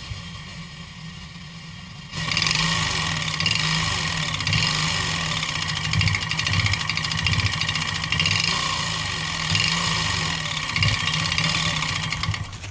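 139QMB 50cc four-stroke scooter engine running on a test stand with a deliberately shortened, ground-down piston skirt and a loose, over-honed cylinder, making piston slap. About two seconds in it suddenly gets much louder and runs hard, then drops off near the end.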